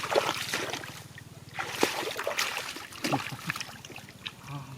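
Shallow muddy water splashing and sloshing in irregular bursts as hands and legs work through a flooded rice field, with the loudest splashes near the start, a little under two seconds in, and about three seconds in.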